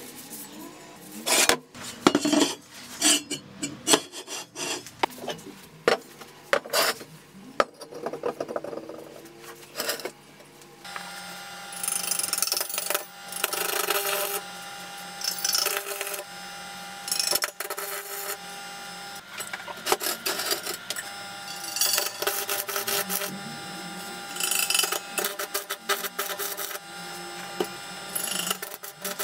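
Steel parts clanking and knocking as they are handled on a workbench for the first ten seconds or so. Then an arc welder hums steadily, with repeated short bursts of welding crackle a second or two long as the steel post is welded to the wheel rim.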